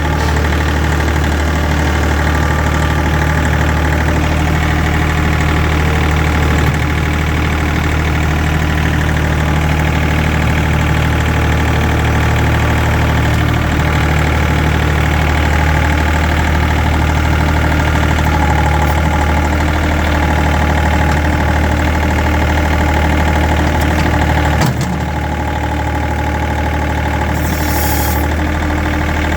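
Small farm tractor's engine running steadily, with a slight drop in level about 25 seconds in.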